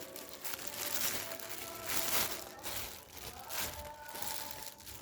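Plastic wrapping being handled, crinkling in several rustling bursts.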